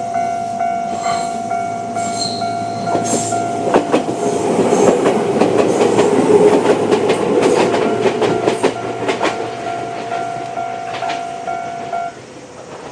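Electronic level-crossing alarm sounding in a steady repeating tone while a Jōshin Electric Railway 500-series train passes, its wheels clicking over the rail joints, loudest a few seconds in. The alarm cuts off suddenly about twelve seconds in.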